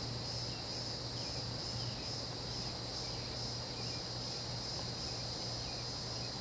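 Chorus of insects such as crickets, a steady high-pitched shrilling with a faint regular pulse, over a low steady hum.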